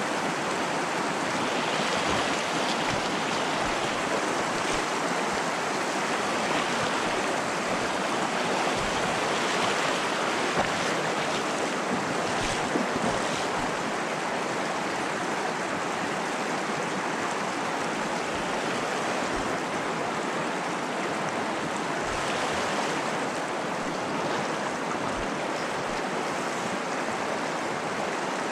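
Steady rush of flowing river water, with a couple of short clicks about halfway through.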